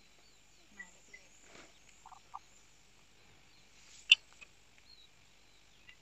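Quiet outdoor background with faint, scattered short animal chirps and one sharp click about four seconds in.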